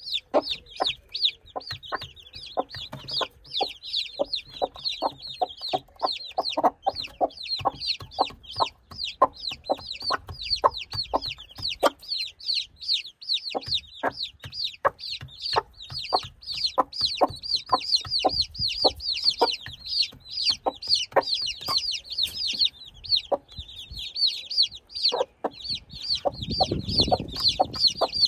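Day-old chicks peeping continuously in rapid high chirps, over many sharp clicks of beaks pecking grain from a stone feeding trough. A brief lower sound rises under the peeping near the end.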